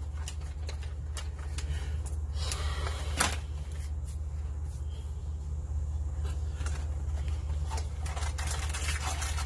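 A steady low hum, with scattered light clicks and rustles from food and packaging being handled by hand. One slightly louder click comes about three seconds in.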